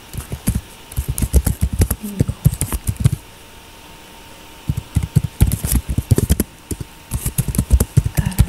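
Computer keyboard typing in quick runs of keystrokes, with a pause of about a second and a half around the middle.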